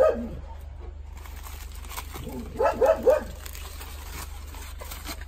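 A dog barking: one short bark at the start, then three quick barks in a row about two and a half seconds in.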